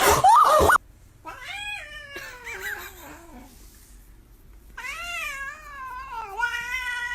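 A domestic cat meowing: two long, drawn-out meows, the first falling in pitch over about two seconds, the second held for more than three seconds. A short loud sound at the very start cuts off under a second in.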